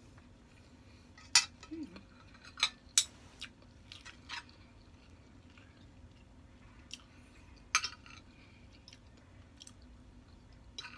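Cutlery clinking against a plate during a meal: a handful of sharp clinks in the first half, one more later on, with faint chewing between them.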